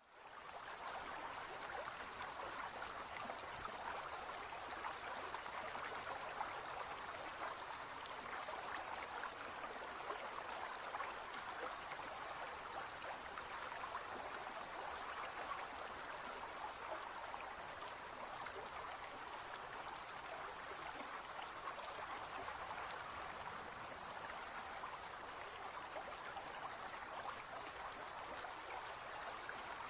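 Steady running, trickling water with an even hiss and no breaks.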